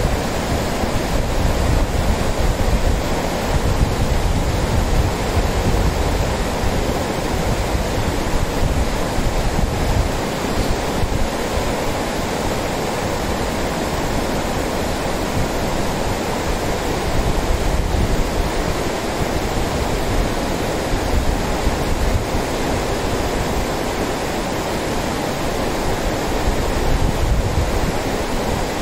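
Lidder River, a fast, shallow mountain river, rushing over a stony bed in white-water rapids: a steady, unbroken wash of water noise.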